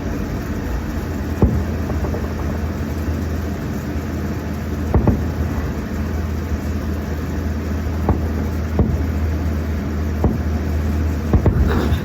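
Distant fireworks going off as a handful of sharp pops at irregular intervals, over a steady low rumble.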